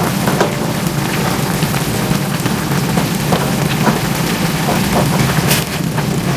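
Food sizzling and crackling in hot oil in a pan, with many small pops over a steady low hum.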